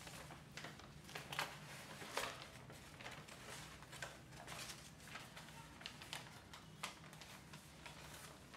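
Irregular light clicks and rustles over a steady low room hum, as people move about in a small room.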